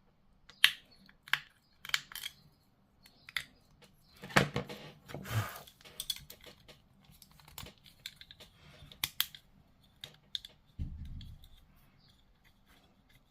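Plastic model kit parts being handled and worked at a table: a series of sharp snips and clicks, a longer scraping rustle about four to five seconds in, and a dull thump a little before the end.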